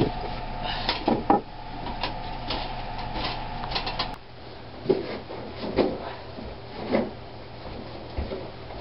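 Wooden attic boards being shifted and knocked by hand over a steady hum. After an abrupt change about four seconds in, dull thuds come about once a second, like footsteps on carpeted wooden stairs.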